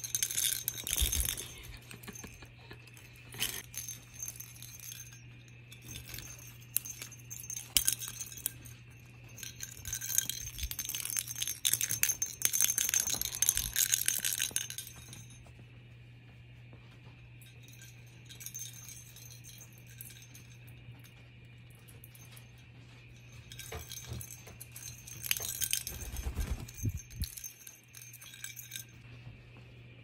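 Bell inside a small plastic ball toy jingling and rattling in repeated bursts as a sun conure pushes and tosses it about, with a long lull midway.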